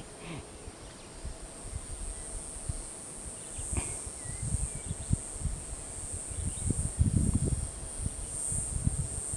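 Steady high-pitched drone of insects, with irregular low thumps and rustles from a small carp being handled and unhooked in the grass, loudest about seven seconds in.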